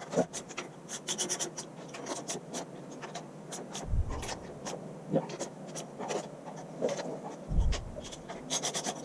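Hand-tool work starting 3/8-inch bolts into the tractor's power take-off rear plate: scattered metal clicks and scraping, with quick runs of clicking near the start and near the end. Two dull thuds land about four seconds in and again near the end.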